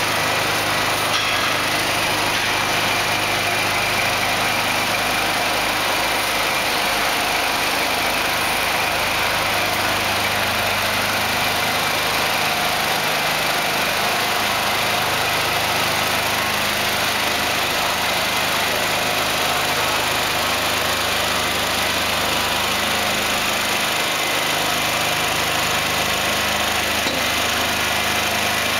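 Heavy-haulage prime mover's diesel engine running steadily at low revs, without any rise or fall.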